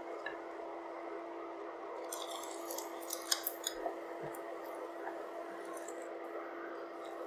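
Egg-and-cabbage toast frying in butter in a pan: light crackling sizzles, thickest between about two and four seconds in, over a steady low hum.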